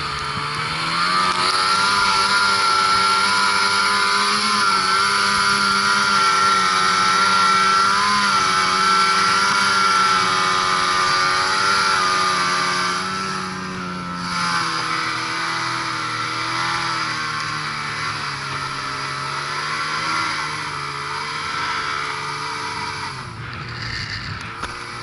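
Ski-Doo Mach Z 1000 SDI snowmobile's two-stroke engine pulling steadily at high revs while riding, its pitch rising and falling slightly with the throttle. About halfway through it eases off and runs at lower revs to the end.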